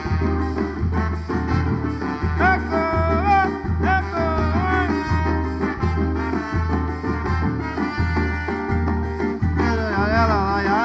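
Band music with no sung words: an instrumental break with a steady, regular bass beat under chords, and a sliding melodic lead line about two seconds in and again near the end.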